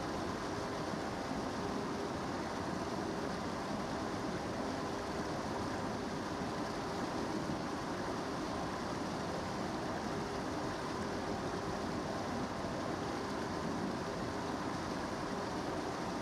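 River water running, a steady unbroken rush.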